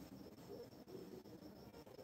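Near silence: faint room tone with a few soft ticks.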